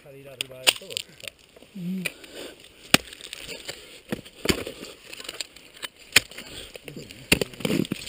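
Ice axe picks striking frozen waterfall ice during a climb: a series of sharp, irregular impacts, with ice crunching and breaking.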